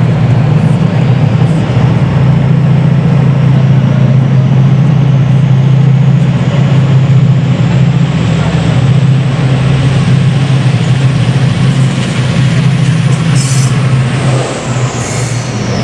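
TransPennine Express train of Mk5a coaches with a Class 68 diesel locomotive at the rear, passing slowly close by. The locomotive's diesel engine gives a steady low drone that eases as it goes past near the end, and a faint high whine falls in pitch over the last few seconds.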